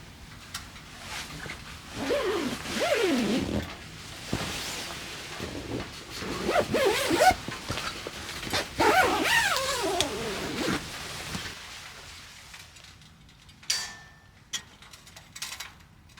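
A dog vocalizing in three drawn-out, wavering whines whose pitch slides up and down, followed near the end by a few short, sharp clicks.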